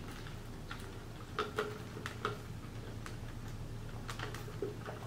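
A person drinking soda through a straw, with a few soft, irregular clicks of sipping and swallowing.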